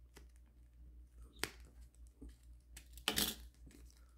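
Thin adhesive glue sheet and its backing paper being handled and peeled with fingers and a craft-knife tip: one sharp click about a second and a half in, then a short crackle of small clicks about three seconds in.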